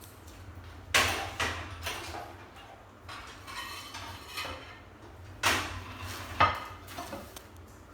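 Utensils clinking and scraping against a plate as the food is served onto it: a few sharp clinks about a second in, softer scraping in the middle, and two more sharp clinks in the second half.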